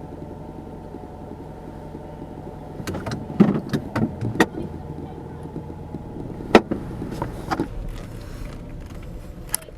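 A car running, heard from inside the cabin as a steady hum that dies away about seven seconds in. Over it come a string of sharp clicks and knocks from about three seconds in, the loudest about six and a half seconds in.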